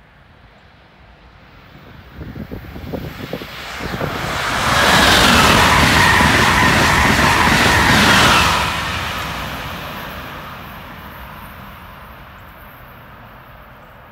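Amtrak Acela Express high-speed trainset passing at speed: a rushing rumble of wheels on rail that builds over a few seconds, is loudest for about four seconds in the middle, then slowly fades away.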